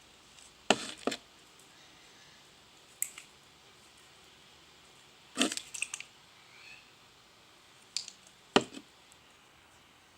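Homemade slime being worked by hand, giving short, sticky clicks and pops every few seconds.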